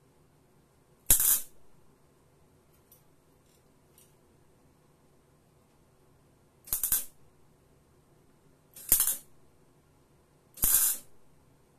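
MIG welder laying short tack welds on sheet steel body panel: four brief bursts of arc noise, each under half a second, one about a second in and three close together in the last five seconds.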